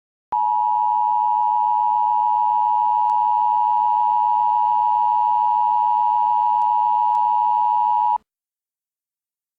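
Emergency Alert System attention signal: a loud, steady electronic tone held for about eight seconds, then cut off abruptly. It marks the start of an emergency broadcast.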